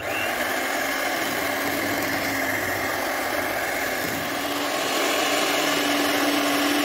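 Electric hand mixer running steadily, its beaters whipping condensed milk into whipped cream until it thickens. Its hum gets slightly higher and a little louder about five seconds in.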